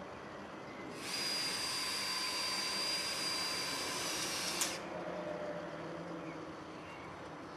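Cordless drill-driver running at a steady high whine for about three and a half seconds as it fastens a wooden shingle element to the wall batten, then stopping sharply.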